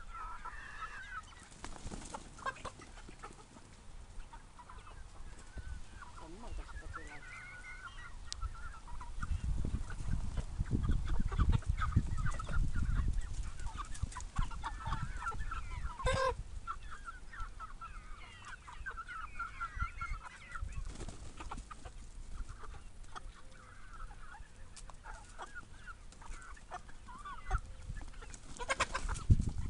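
A flock of chickens clucking as they feed, many short overlapping calls throughout. A low rumble rises from about nine seconds in and fades by fourteen, and there is a single sharp click about halfway through.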